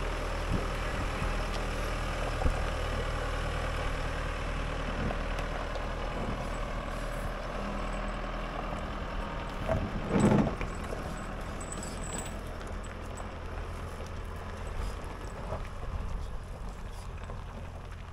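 Holden Colorado diesel ute crawling over rough rocky ground towing an off-road camper trailer: a steady low engine drone, with one loud thump about ten seconds in as the rig works over the broken track.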